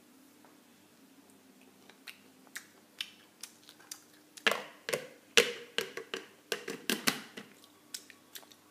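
Sunflower seed shells cracking between the teeth: a run of sharp, crisp clicks, sparse at first, then quicker and louder in the middle, then thinning out.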